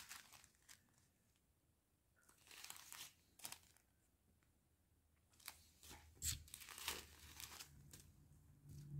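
Small clear plastic zip-lock bags of diamond painting drills being handled, crinkling faintly in short bursts with quiet gaps between.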